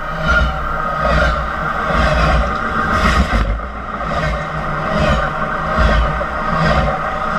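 Union Pacific train rolling directly over a camera on the track: a heavy rumble with a steady high ring from the wheels on the rails, and a clatter of passing wheels about once a second.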